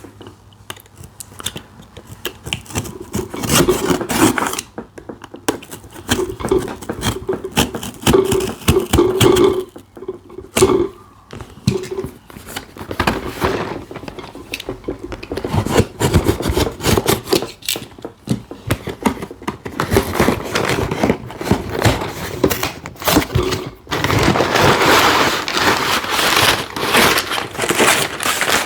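A cardboard Lego set box being torn open and its contents handled: tearing and scraping of cardboard and crinkling of paper bags, with many sharp clicks.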